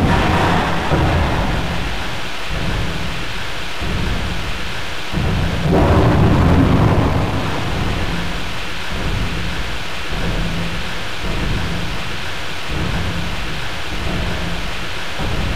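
Thunderstorm-like sound: low rumbling thunder over a steady rain-like hiss, swelling louder about six seconds in.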